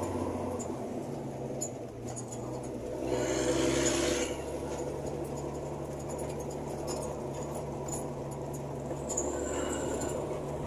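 Diesel truck engine running steadily, heard from inside the cab as it drives on a dirt road; its note shifts about a second in. A louder hissing rush rises over it about three seconds in and dies away after about a second.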